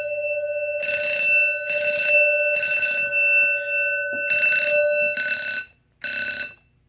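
Fire alarm system in alarm, its signals sounding in a code 3 temporal pattern: three short blasts, a pause, then three more. A steady tone runs beneath them and stops about five seconds in.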